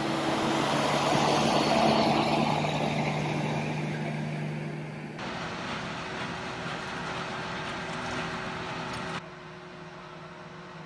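Heavy semi-truck running as it drives past on a wet road, its engine hum and tyre hiss swelling and then fading. Cut at about five seconds to a steadier engine hum, which drops to a quieter hum just after nine seconds.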